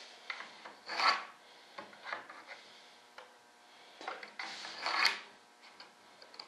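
A hand tool scraping on foam-and-wood model aircraft parts: two loud rasping strokes, about a second in and again near five seconds, with lighter scratches and small clicks between.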